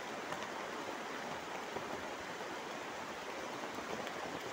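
Steady rushing noise, with a few faint light clicks.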